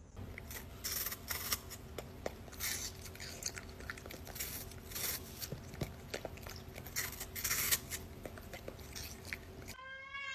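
A dog crunching and chewing a piece of apple held out by hand: irregular crisp crunches and bites. Near the end a cat starts a long meow.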